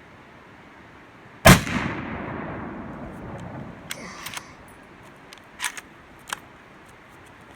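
A single gunshot about one and a half seconds in, its report rolling away over about two seconds, followed by a few faint metallic clicks and a brief clink.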